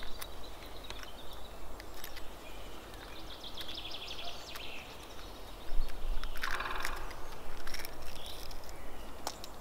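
Fingers cracking and picking shell off a fire-cooked hard-boiled egg, giving small scattered clicks. Wild birds call over it, a quick high series a few seconds in and a louder rattling call about six seconds in, the loudest sound here.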